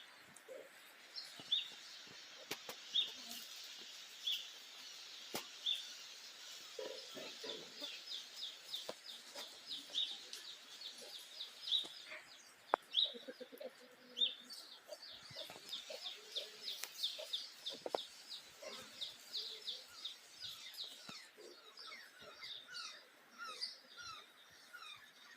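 Birds calling. Short high chirps come about every second and a half, then long fast trills, with a few lower clucking notes mixed in.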